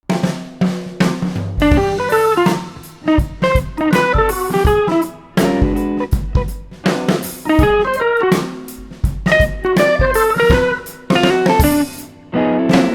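Background music: plucked guitar melody with a drum kit keeping a steady beat.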